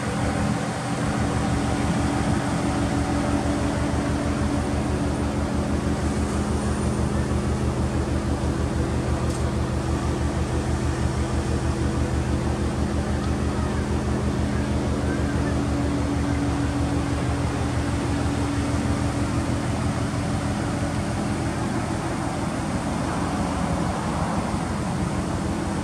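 Subaru Impreza WRX STI (GDB) with an aftermarket muffler, its turbocharged 2.0-litre flat-four idling steadily with an even low exhaust pulse.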